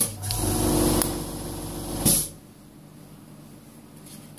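The heating plate's built-in vacuum pump switches on with a click and runs for about two seconds with a hum and a hiss of air. It cuts off with a sharp burst of hiss.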